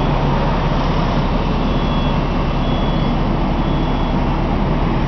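Fire engine running steadily beside the camera, its diesel engine and pump making a loud, even noise that does not change.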